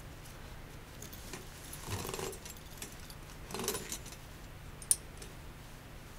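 Steel body-grip (conibear) trap and its chain rattling and clinking twice as a nylon leash looped through a spring is pulled to compress it. A single sharp metallic click comes near five seconds.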